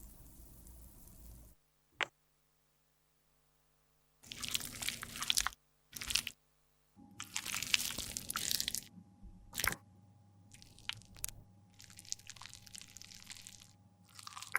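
Crunchy scraping and crushing of makeup product in several short bursts, with a sharp click about two seconds in and another near the middle.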